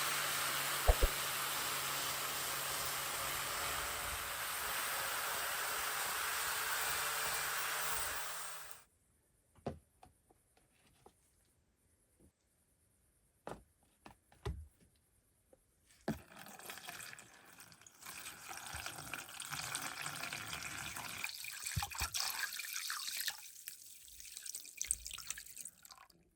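Water running steadily from a tap, which cuts off sharply about nine seconds in. A few short clicks follow, then from about 16 s an uneven noise.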